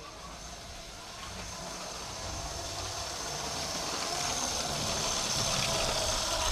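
LEGO Power Functions train motor running on one of its two motors, with the plastic wheels rolling on LEGO track: a steady mechanical whir with a high thin whine, growing louder as the engine comes close.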